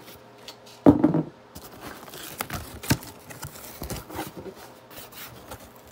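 Cardboard packaging being handled and opened: flaps and inserts scraping and rustling, with a loud burst of cardboard noise about a second in and smaller scrapes and clicks after it.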